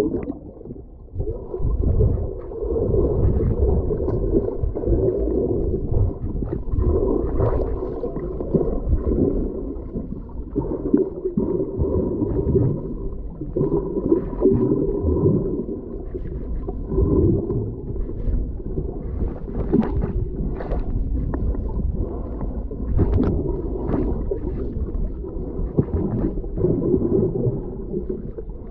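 Muffled underwater sound picked up by a submerged camera: a low rumble and gurgling of water moving around the housing, with scattered small clicks and knocks.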